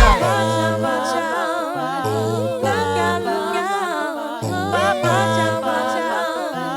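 Background music: layered wordless vocal harmonies with vibrato over held bass notes, without a beat.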